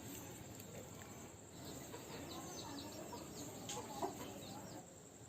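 Faint bird calls in the background, including a quick run of high chirps, with a couple of light clicks about four seconds in.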